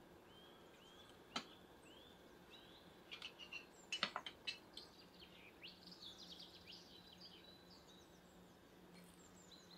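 Small birds chirping and trilling, with a few sharp clinks of cutlery on plates about one second in and a cluster of them around four seconds in.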